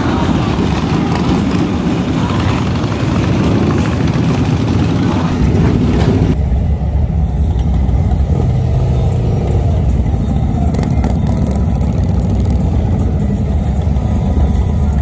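Harley-Davidson V-twin motorcycles rumbling past in slow street traffic. About six seconds in the sound changes abruptly to motorcycle engines idling close by, a deep steady low rumble.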